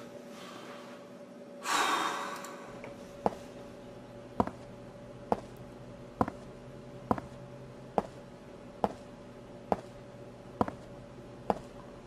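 A single heavy, breathy exhale or gasp, followed by a regular sharp click a little more than once a second over a faint steady hum.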